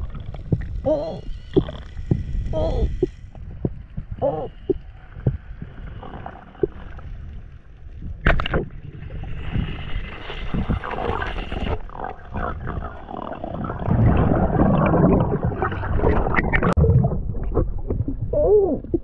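Underwater audio of a spearfishing dive: a low rumble of water with muffled knocks and short wavering squeals. About eight seconds in there is one sharp crack as the wooden speargun fires. Louder churning water noise follows in the last few seconds.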